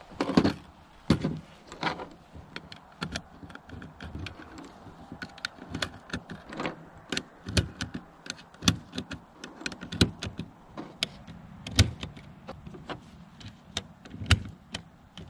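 Cartridges being pressed by hand into a magazine one after another, a run of sharp metallic clicks, with a few louder knocks as magazines are picked up from the table at the start.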